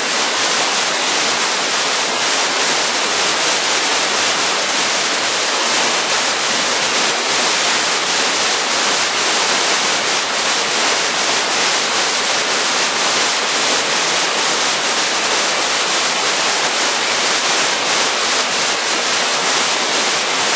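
Waterfall crashing into its pool: a loud, steady rush of falling water that holds level throughout.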